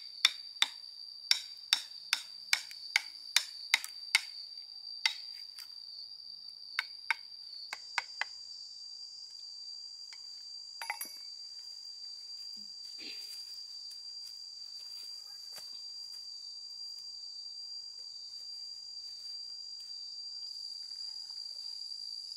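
A wood chisel being struck to cut a joint into a log: sharp blows about every 0.4 s for the first four seconds, then a few scattered blows up to about eight seconds in. A steady high insect drone runs throughout.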